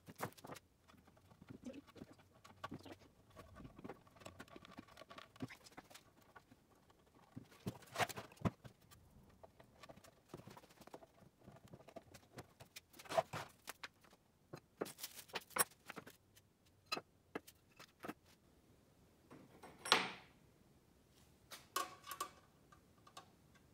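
Scattered clicks, clinks and short rattles of metal parts and hand tools being picked up, set down and fitted on a wooden workbench during assembly of a benchtop belt and disc sander, with one louder scrape-like knock about twenty seconds in.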